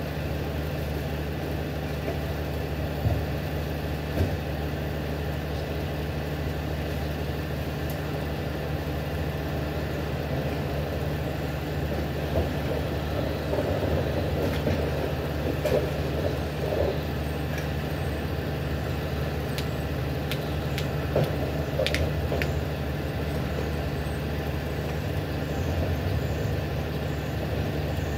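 Freightliner SD garbage truck with a McNeilus rear-loader body, its diesel engine idling steadily, with a few sharp knocks and clatters from trash being handled.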